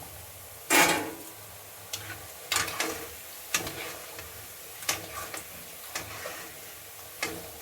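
A metal spoon scraping and clinking against the kadai as fried colocasia pieces are lifted out of the hot oil: one longer scrape about a second in, then a sharp tap about every second, over faint sizzling of the frying oil.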